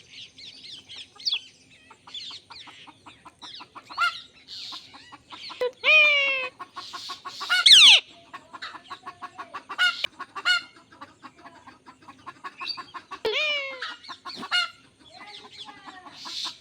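Indian ringneck parakeet calling: long runs of rapid clicking chatter broken by several loud, sharp squawks, the loudest about six, eight and thirteen seconds in.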